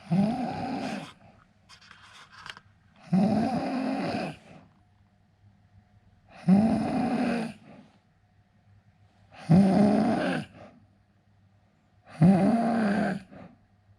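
A sleeping man snoring: five loud snores about three seconds apart, each lasting about a second, with faint breathing in the gaps.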